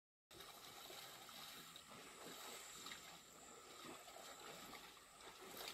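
Faint waterhole ambience: a steady hiss with soft sloshing of water as buffalo wade, starting abruptly just after the start.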